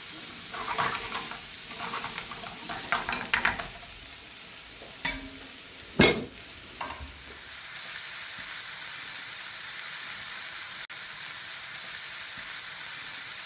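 Diced onions and red peppers frying in olive oil in a frying pan, stirred and scraped with a wooden spoon for the first few seconds, then left to sizzle steadily. A single sharp knock about six seconds in.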